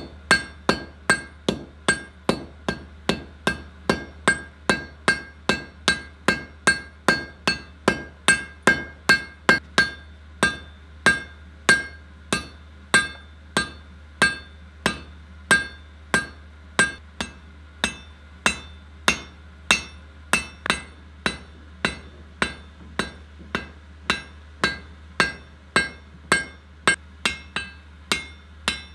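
Blacksmith's hand hammer striking hot iron on an anvil at a steady pace, about two blows a second, each blow ringing briefly, as the bar is forged into a flattened point.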